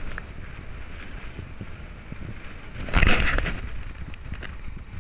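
Wind rushing over an action camera's microphone on a moving road bicycle, with a steady low rumble beneath. A louder burst of noise comes about three seconds in.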